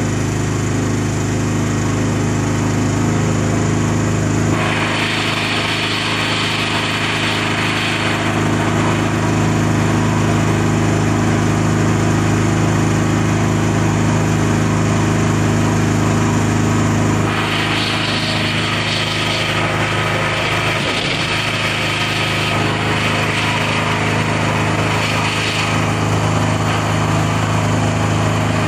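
Firewood processor's power unit running steadily with an even engine-like hum. A louder hissing rattle comes in twice, from about five to eight seconds in and again from about seventeen to twenty-five seconds, as the machine works.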